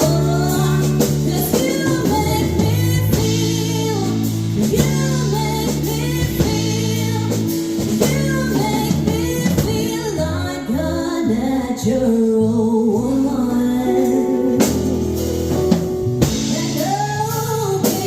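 A woman singing a song with full band accompaniment: sustained bass notes, drums and guitar under the vocal line.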